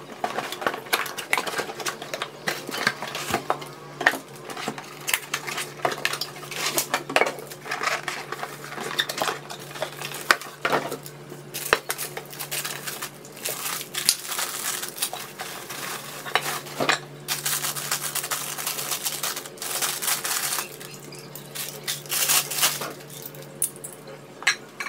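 Cookware being unpacked: clinks and knocks of glass pot lids and cast-aluminium pots being handled, with long stretches of rustling and crinkling from their plastic wrapping. A faint steady low hum runs underneath.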